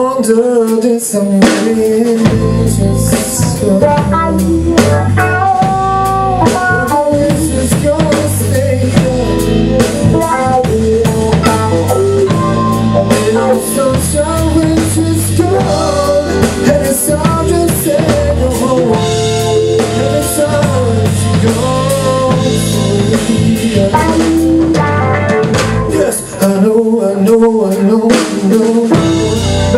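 Live blues band playing: drum kit, bass line and keyboard in a steady groove, with guitar.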